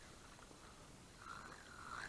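Near silence: faint outdoor background, with a faint wavering tone starting a little past the middle.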